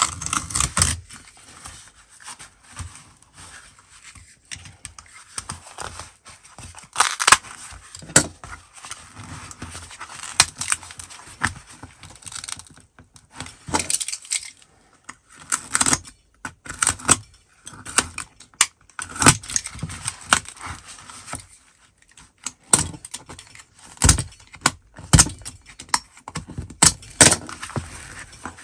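Hands working a Filofax apart: the metal ring mechanism clinking and knocking while the fabric lining is pulled and peeled from its boards. The result is irregular sharp clicks and scrapes with rustling between them.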